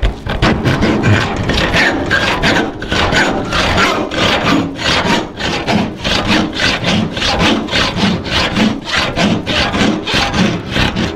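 Disston handsaw, made for cutting metal trim, sawing through aluminum tubing with quick, even back-and-forth strokes.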